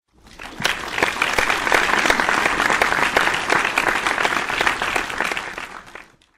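Crowd applauding: many hands clapping together, swelling up in the first second, holding steady, then fading out near the end.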